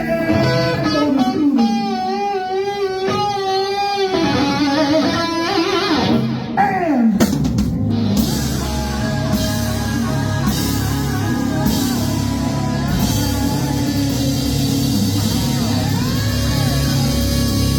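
Rock band playing, led by electric guitar with wavering held notes. About seven seconds in the guitar slides down in a long falling dive, and drums and the full band carry on steadily after it.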